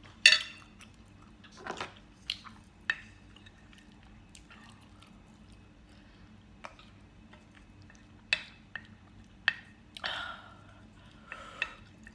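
Close-up eating sounds of spicy noodles being eaten with chopsticks: a string of short, sharp, wet mouth smacks and clicks, the loudest just after the start, with a longer slurp-like sound about ten seconds in.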